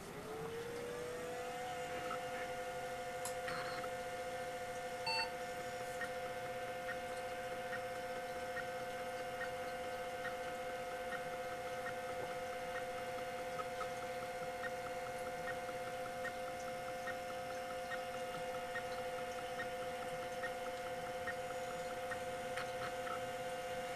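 Tandon TM-362 MFM hard drive powering up: a whine rises in pitch over the first couple of seconds as the drive spins up, then holds steady. Over it the head stepper motor ticks over and over, a larger step followed by several small ones, hunting for the track without finding it: a startup sequence that takes far too long, the sign that the drive cannot find its tracks.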